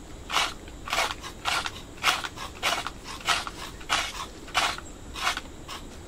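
Knives scraping the skin off manioc (cassava) roots in repeated short strokes, roughly one every half second.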